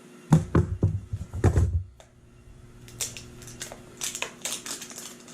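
Packaging being handled and opened: a cluster of heavy knocks and thumps for about two seconds, then a quick run of sharp plastic clicks and crackles.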